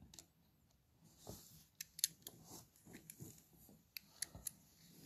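Faint, scattered small clicks and light handling noises, with a few sharper ticks in the middle.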